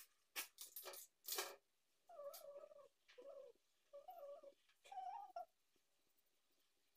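A cat meowing four times in a row, each call under a second with a wavering pitch, after a few short hissing noises.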